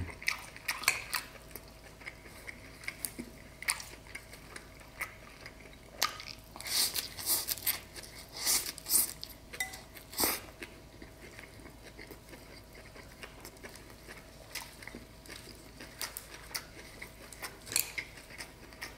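Close-up eating sounds: chewing grilled beef short rib and rice vermicelli, with many small wet mouth clicks. There are louder sucking slurps of noodles around the middle.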